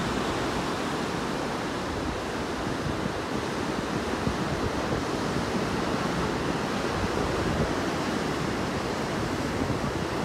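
Sea surf washing over rocks below a cliff: a steady, loud rush of breaking waves, with wind buffeting the phone's microphone.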